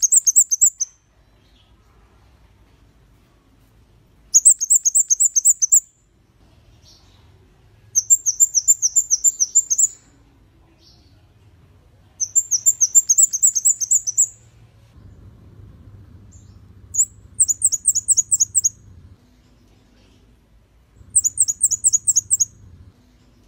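Flowerpecker (kemade kepala merah) singing in short bursts of rapid, high-pitched, falling notes, about six notes a second, each burst lasting under two seconds and repeated every four seconds or so.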